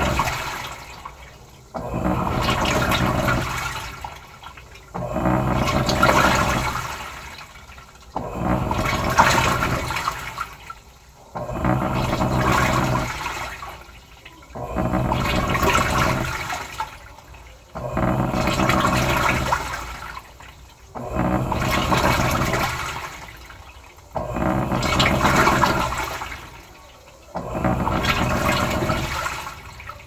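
Electrolux Turbo Economia LTE06 top-loading washing machine agitating a wash load. The motor hums and water swishes in strokes of about two seconds, roughly one every three seconds.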